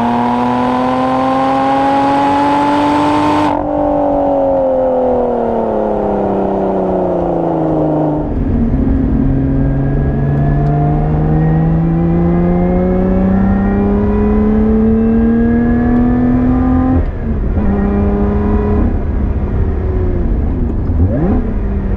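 Lotus Evora 400's supercharged 3.5-litre V6 pulling under acceleration. The revs climb, fall away for a few seconds, then climb steadily for several seconds before dropping sharply at an upshift about seventeen seconds in and rising again. Heavy wind and road rumble joins about eight seconds in.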